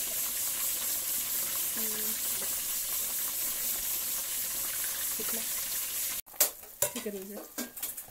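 Steady hiss from a pot of lamb ribs boiling in spiced, turmeric water on a gas stove. It cuts off abruptly about six seconds in, and sharp clicks of a spatula against a frying pan follow, with a brief voice-like sound.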